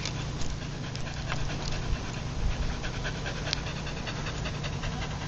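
English Springer Spaniel panting steadily.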